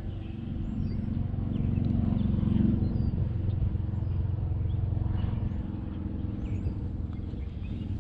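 A motor vehicle's engine running nearby with a steady low hum that swells a couple of seconds in and eases near the end, while birds chirp.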